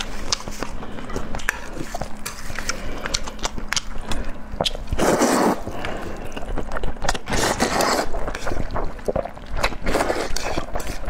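Close-miked eating: chewing with many wet mouth clicks, then loud slurps of sauced noodles about five seconds in, again a couple of seconds later and once more near the end.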